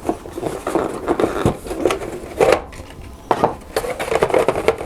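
Board game box and components handled by hand while unpacking: an irregular run of knocks, scrapes and clacks of cardboard and plastic.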